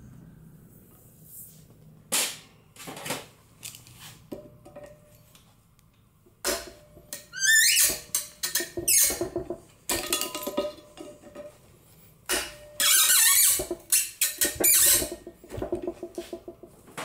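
Metal-on-metal clanking, scraping and short squeals from hand work on a seized exhaust manifold stud, with a quick rising squeal about halfway through and dense clusters of knocks in the second half.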